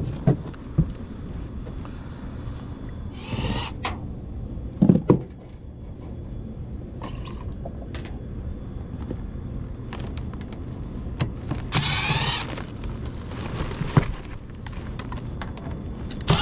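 Cordless impact driver spinning in short bursts, three times, at the screws of a furnace's sheet-metal panel, with scattered clicks of handling and a loud clunk about five seconds in. Under it runs the steady low hum of the furnace, running in heat mode with its blower on.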